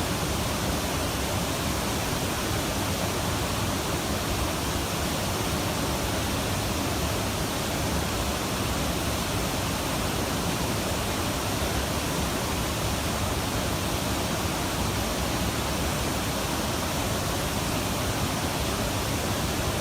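Weeks Falls, a river waterfall, rushing steadily with an even roar of falling water and no change in level.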